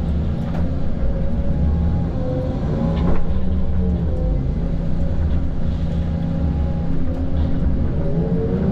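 Cat 558 forestry machine with a SouthStar 600 processor head at work: a steady diesel engine hum under a whine that rises and falls in pitch, with a sharp knock about three seconds in.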